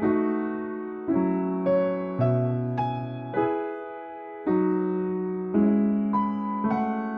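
Piano playing slow, gentle chords, each struck and left to ring and fade before the next, with one chord held longer about midway.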